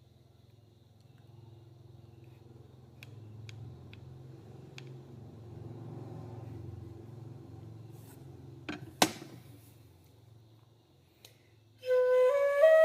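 Home-made nứa bamboo flute (sáo) played near the end as a quick run of notes stepping upward, testing the pitch of the freshly burned finger holes, which the maker finds still out of tune. Before it, a faint low hum with a few light clicks, and two sharp knocks about nine seconds in.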